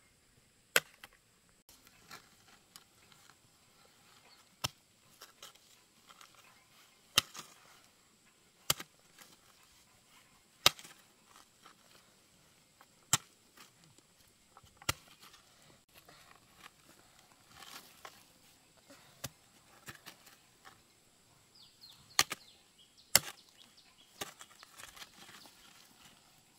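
A hand hoe chopping into dry, stony soil: sharp single strikes of the blade every second or two, irregularly spaced.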